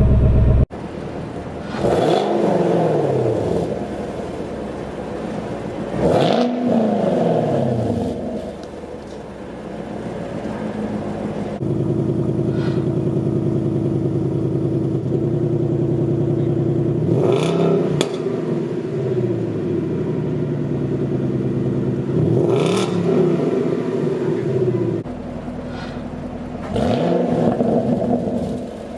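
Stock V8 with a factory dual-mode exhaust idling and being revved in five short blips, each climbing and falling back in pitch.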